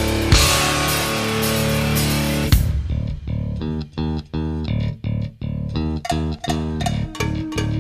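Heavy rock music with distorted electric guitar, bass guitar and drums. A dense, sustained full-band sound breaks off about two and a half seconds in into a stop-start riff of short chugged chords with brief gaps between them.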